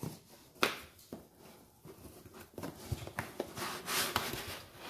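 Hands handling a corrugated cardboard box and pulling out a sheet of white packing foam. There are scattered sharp clicks and scuffs, then a busier stretch of foam and cardboard rubbing and scraping in the second half.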